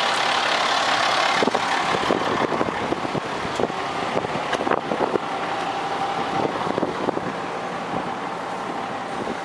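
Digger derrick utility truck's engine running steadily, with scattered clicks and knocks over it.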